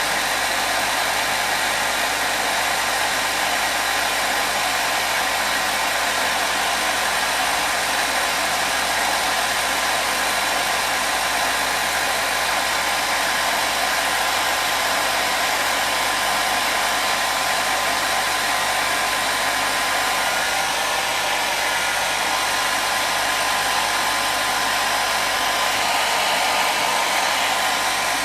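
Electric hair dryer blowing steadily, a continuous rushing air noise with a faint steady whine from its motor, kept running as white noise to soothe a baby.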